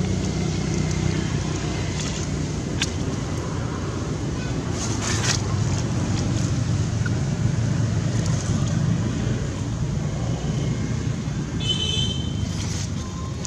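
Steady low outdoor rumble with a few faint clicks, and a short high chirp near the end.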